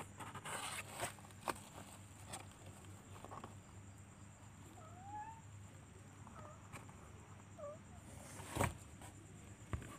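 Young kittens mewing faintly: a few short, thin, high mews, one rising and one dipping then rising, about halfway through. Scattered knocks and rustles around them, the loudest a thump near the end.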